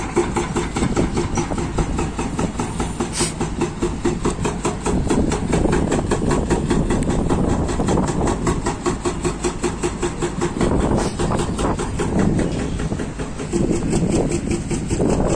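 Hydraulic rock breaker on an excavator hammering in rapid, even blows over the steady run of heavy diesel engines.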